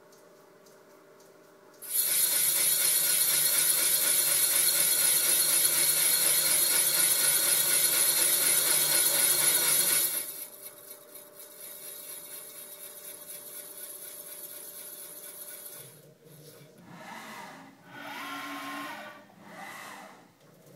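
A machine tool cutting O-ring grooves for stainless steel wire into the deck of a Honda B18 engine block. It runs loud and steady for about eight seconds, stops suddenly, runs on more quietly, then ends in three shorter swells.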